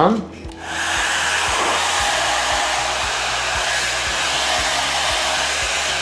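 Slopehill 1800 W ionic hair dryer switching on just under a second in and then blowing steadily through its diffuser attachment, an even rush of air.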